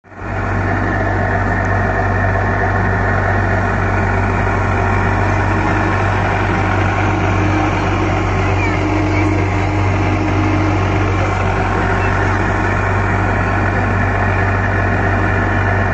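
Small motorboat's engine running steadily at an even speed, a constant low hum with no change in pitch.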